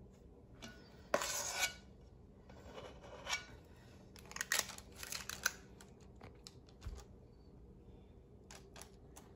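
A metal ice cream scoop scraping choux pastry dough out of a stainless steel bowl and clicking as its release lever drops portions onto a baking tray: a handful of short, quiet scrapes and clicks.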